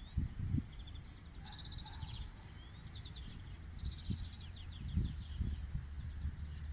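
Songbirds singing in short, fast trills, over a low rumble with a few soft thumps.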